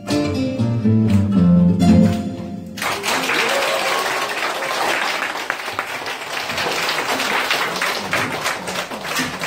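A classical guitar quartet plays its closing plucked notes, which stop about three seconds in, and the audience breaks at once into applause that continues to the end.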